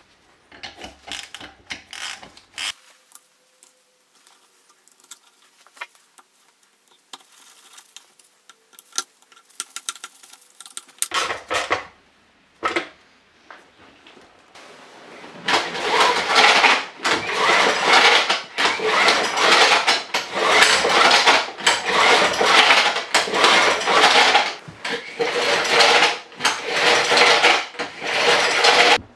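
Clicks and clinks of tools and engine parts being put back together, then the small engine's recoil starter pulled over and over, about once a second, cranking the engine with the spark plug out and grounded on the head to test for spark.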